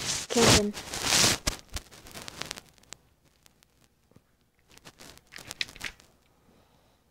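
Rustling and scraping of a handheld phone and toy gun being moved against bedding and plush toys. The noise is loudest in the first second and a half, with faint clicks after and a quieter burst of rustling about five to six seconds in.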